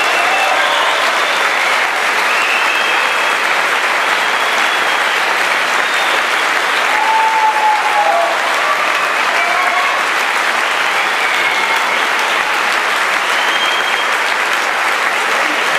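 Audience applauding steadily at the end of a tango performance, with a few voices calling out over the clapping.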